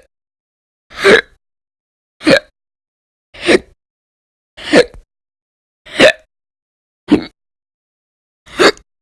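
Violent, loud hiccups repeating steadily about every second and a quarter, seven in all, each a short sharp gulping catch of the voice. They belong to a bout of chronic hiccups that runs for many hours a day.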